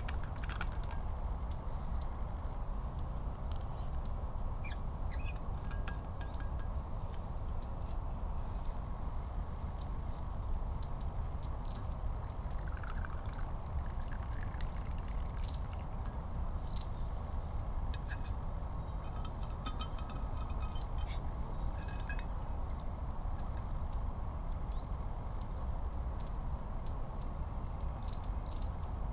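Small birds chirping with many short high calls scattered throughout, over a steady low background rumble.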